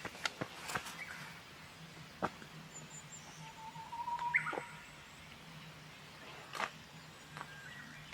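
Japanese bush warbler singing once, a little past the middle: a held whistle about a second long that breaks into a short, higher flourish. A few sharp clicks sound around it.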